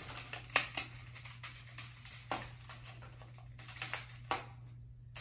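Plastic magnetic building tiles clicking and clacking as they are picked up, set down and snapped together. The clicks come singly and irregularly, the sharpest about half a second in and a quick cluster near four seconds.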